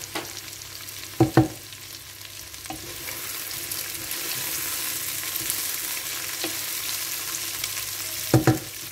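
Chicken strips and vegetables sizzling in oil in a pot as a wooden spatula stirs them, the hiss growing louder about three seconds in. A couple of short, sharp knocks, about a second in and near the end, stand out above it.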